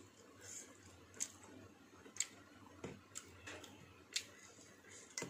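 Quiet eating sounds from a person eating by hand from a metal bowl: faint, short clicks and smacks at irregular spacing, roughly one a second.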